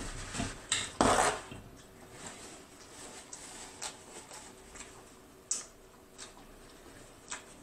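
Close-miked mukbang eating sounds: lobster tail handled by hand, with a loud clatter against a dish about a second in, then scattered small wet clicks of chewing and mouth sounds.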